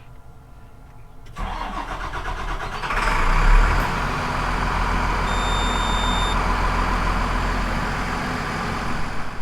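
An engine cranking and catching about a second and a half in, then running steadily at idle.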